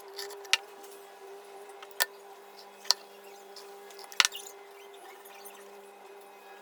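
Four sharp clicks or knocks, irregularly spaced about a second apart, the last the loudest, over a steady hum.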